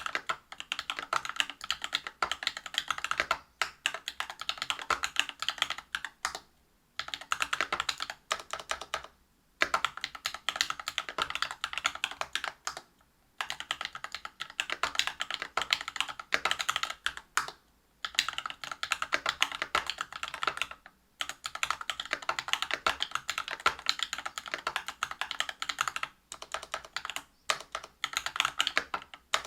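Fast typing on a Whale 75 mechanical keyboard with Cobalt POM linear switches lubed with Krytox 205g0, on a brass plate with PBT keycaps. Rapid keystrokes come in runs of a few seconds, with brief pauses between runs.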